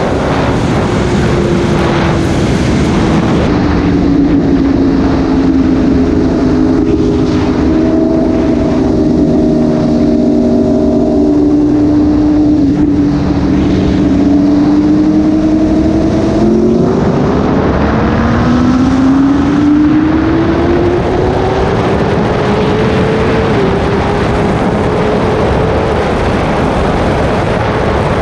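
Inline-four superbike engines of a BMW S1000RR and a Yamaha R1 running side by side in a high gear, under heavy wind rush. The engine note sinks slowly for the first dozen seconds, then climbs steadily as they accelerate, with a short dip about two thirds of the way through.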